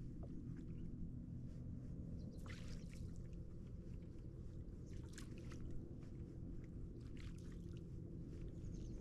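Water lapping quietly against a kayak hull, under a steady low rumble, with a few faint short ticks and splashes scattered through it.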